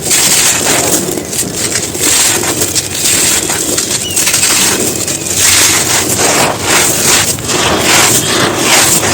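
Hard, dry chunks being crumbled and crushed: a dense run of gritty crunches and crackles, thickest in the second half.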